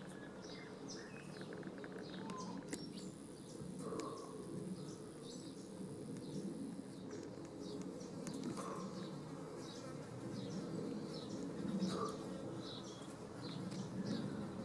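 Many bees buzzing steadily as they work the flowers of a blooming bottlebrush shrub. Short high bird chirps come and go throughout, and a thin high whine sounds for a few seconds near the start.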